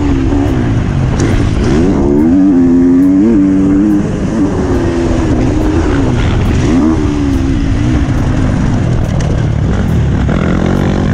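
Motocross dirt bike engine revving hard, its pitch rising and falling over and over as the rider works the throttle and gears down the track, with a constant rush of wind noise.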